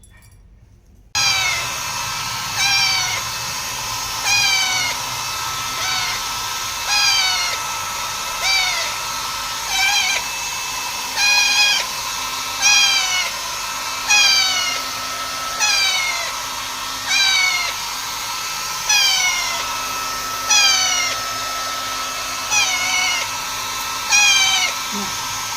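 Hair dryer switched on about a second in and running steadily, while a baby parrot gives a loud falling squawk about every second and a half, many times over.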